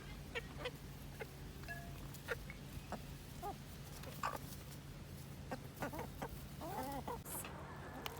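Chickens clucking softly: a scatter of short clucks, with a longer wavering call near the end, over a low steady hum.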